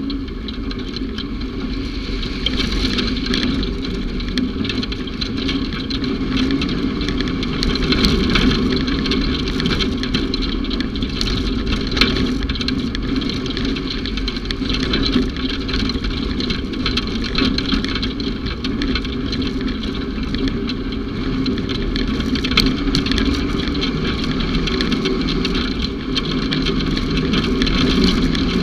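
Off-road utility vehicle's engine running steadily under way, with frequent knocks and rattles over rough ground.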